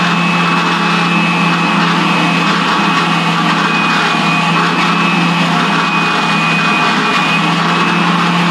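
Spindle sander running steadily, with a rubber belt-cleaner stick pressed against its spinning sanding sleeve to clear sawdust clogging from the abrasive. The motor gives a steady hum with a thin high whine above it.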